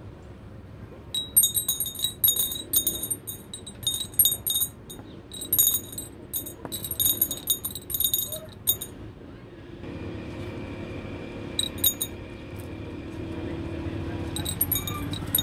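Glass bottle clinking and ringing as something on a string is jiggled against its inside: quick irregular runs of sharp chimes for about eight seconds, then a few more near the end. A steady low rumble comes up about two-thirds of the way in.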